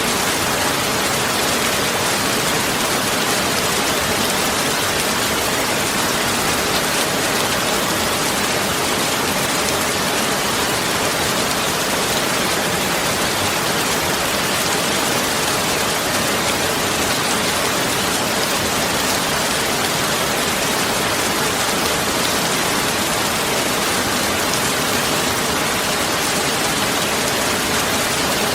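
Steady, even rushing noise of falling water, like rain.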